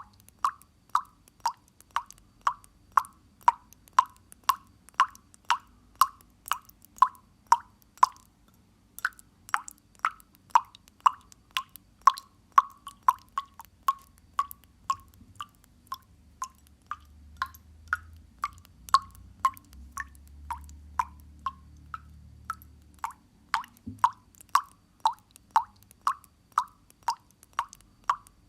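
Water dripping into water, a steady run of short plops at about two drops a second, with a brief pause about eight seconds in.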